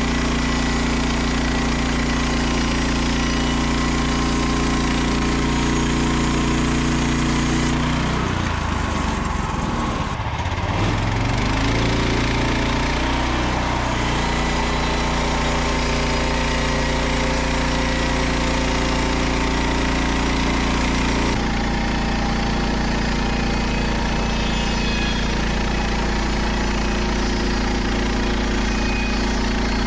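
Frontier OS27 portable bandsaw mill running, its small petrol engine driving the band blade through a Douglas fir log. The engine note wavers and dips for a few seconds about a third of the way in, then settles back to a steady run.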